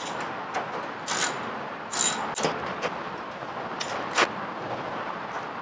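Hand ratchet clicking as it turns out the 10 mm bolts holding down the air filter box, with a few louder, sharper clicks scattered through.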